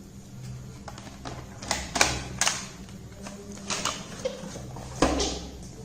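Laptop battery being fitted into its bay: a handful of sharp plastic clicks and knocks, the loudest about two seconds in and again about five seconds in.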